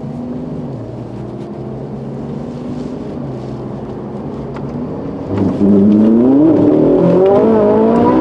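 Ferrari 458's naturally aspirated V8 running at low revs at a standstill, then about five and a half seconds in it suddenly gets much louder as the car launches hard, the revs climbing and dropping again and again as the cold rear tyres peel out.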